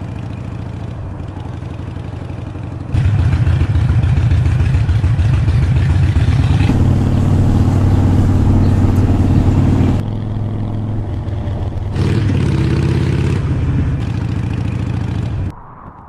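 Harley-Davidson V-twin motorcycle engine running and revving. The level jumps up suddenly about three seconds in and falls away just before the end.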